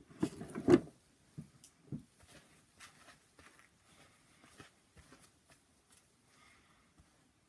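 Close rustling and bumping right at the microphone, loudest in the first second, then faint scattered rustles and soft clicks as hair and hands move near the phone.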